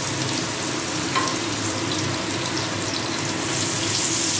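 Garlic sizzling as it fries in hot oil and butter in a pan, with a few light knocks of stirring.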